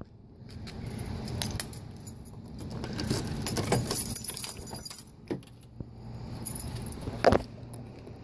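Light metal jingling with scattered clicks and knocks as a car's rear door is handled and opened, the jingling strongest in the middle.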